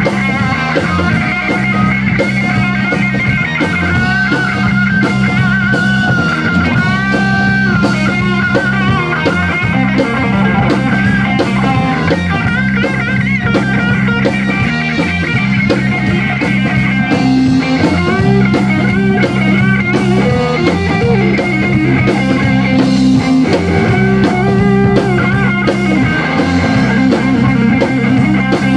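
A live rock band playing: electric guitar, bass guitar and drum kit together, the bass repeating a steady line under a guitar part with bent, wavering notes.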